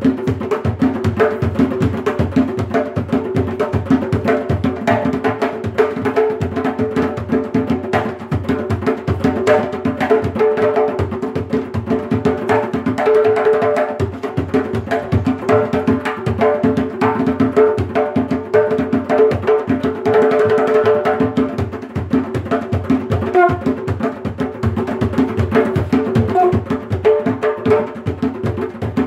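Two gwoka ka drums played with bare hands together in a 6/8 rhythm: a continuous run of quick, dense strokes over the steady ring of the drum heads.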